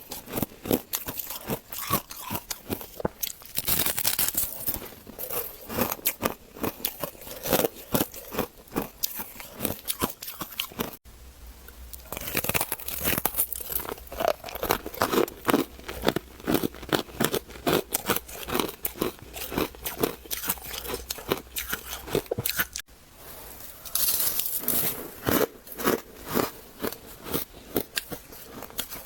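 Freezer frost being bitten and chewed: many quick, crisp crunches one after another. Twice the sound breaks off abruptly and starts again, and a faint low hum sits under the middle stretch.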